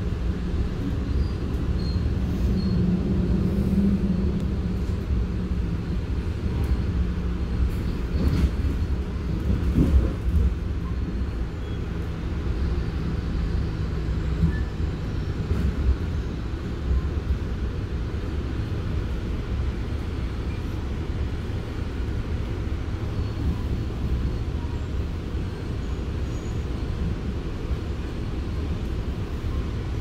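Passenger train cabin interior while running: a steady low rumble of the wheels on the track, with a low hum over the first half that fades out about halfway through and a few brief knocks around ten seconds in.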